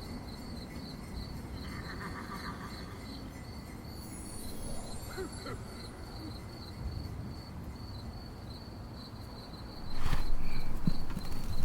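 A high-pitched chirp repeating steadily about three times a second, cricket-like, over a low background rumble. About ten seconds in, a much louder rushing noise starts.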